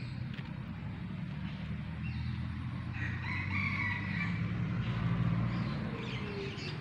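Rooster crowing once, about three seconds in, over a steady low hum.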